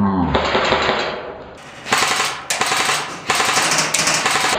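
Airsoft electric rifle firing on full auto in several rapid bursts, a fast clatter of shots with short breaks between bursts.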